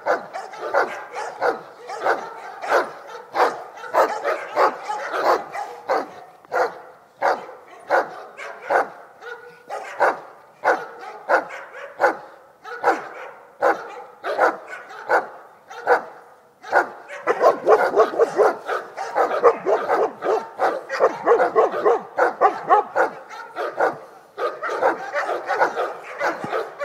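Dogs barking repeatedly, roughly two barks a second. A little past halfway the barks come faster and overlap, and grow louder.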